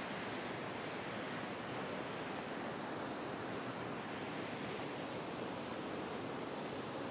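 Steady rush of a waterfall in a rock canyon: an even noise that holds the same level throughout, with no breaks or separate events.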